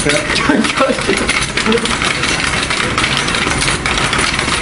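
Metal laundry cart rattling on its casters as it is spun around on the floor: a loud, continuous metallic clatter with a low rumble underneath.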